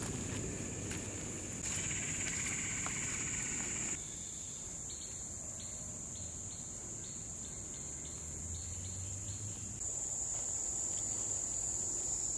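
A steady, high-pitched drone from a chorus of insects in the woods, with fainter short chirps repeating for a few seconds in the middle.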